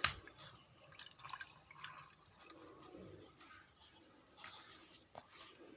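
A sharp click, then faint scattered ticks and drips of water.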